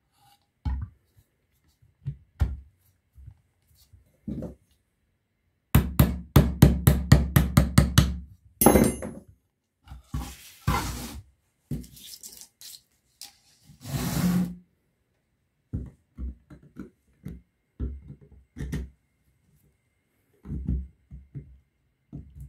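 Workbench handling knocks as a small pump motor's metal housing and end cap are fitted together, with a quick run of about ten taps a couple of seconds long, about four a second, as the loudest part. Short scraping and rustling sounds come in between the knocks.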